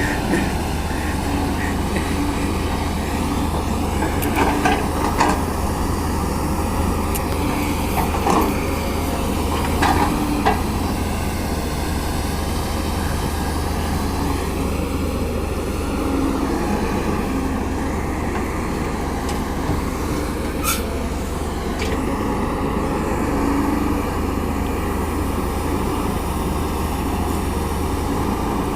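CAT 320D hydraulic excavator's diesel engine running steadily under work, with a few short knocks and clanks from the machine as it digs.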